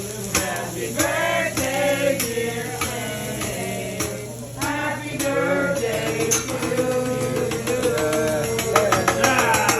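Music with several voices singing, with a few sharp clicks.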